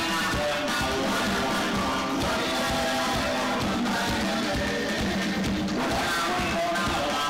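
Zimbabwean guitar band playing live: interlocking guitar lines over a drum kit keeping a steady beat.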